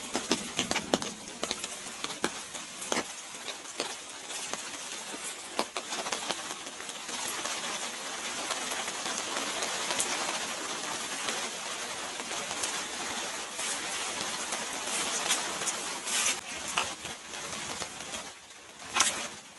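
Rain falling, a steady hiss with irregular drops tapping and clicking on nearby surfaces.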